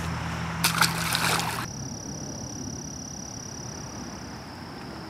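A steady low hum with a burst of rustling noise on the microphone about a second in, as the camera is swung around. Both stop abruptly, leaving faint outdoor ambience with a steady high-pitched insect drone.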